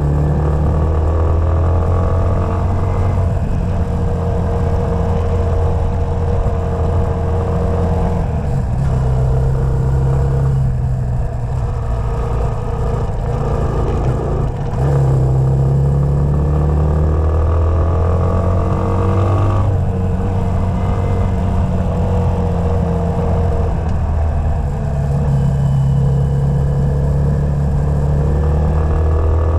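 Honda CTX200's single-cylinder four-stroke engine running as the bike rides a dirt track. The engine note climbs and then drops several times, with throttle and gear changes.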